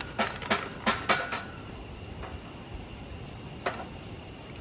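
Sharp clicks and clinks of camp cookware being handled: five in quick succession in the first second and a half, then two more later.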